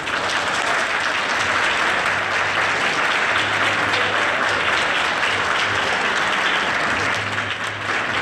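Crowd of onlookers applauding, a dense, steady clapping that breaks out suddenly and carries on at full strength.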